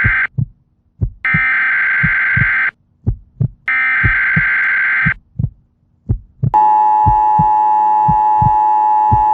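Emergency Alert System broadcast tones: three harsh buzzing data bursts about a second and a half each, then from about six and a half seconds in the steady two-tone attention signal. A low heartbeat-like thudding repeats underneath.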